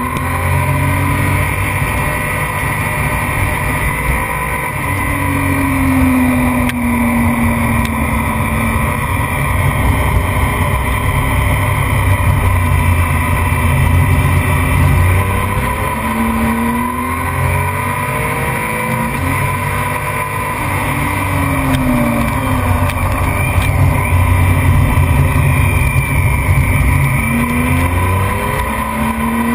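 Racing motorcycle heard from its own onboard camera at speed: the engine's pitch climbs and drops again and again as it revs up and shifts through corners and straights, over a steady loud rumble.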